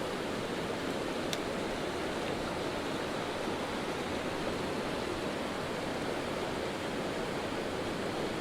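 Small mountain creek flowing: a steady rush of water over the stream bed.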